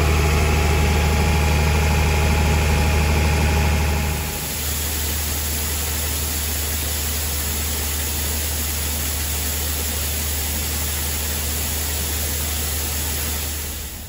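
Grain auger and engine running steadily while shelled corn pours from a truck's tailgate chute into the auger hopper. A low machine hum dominates for about four seconds, then the sound changes to a steadier rush of pouring grain over a weaker hum.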